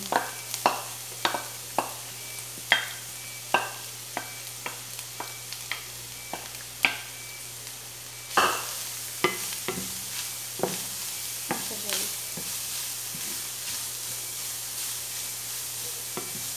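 Grated carrot sizzling in olive oil in a frying pan, with a wooden spoon knocking and scraping against the plate and the pan as the carrot is scraped in and stirred. The knocks come every half second or so at first, and the sizzle grows louder about eight seconds in.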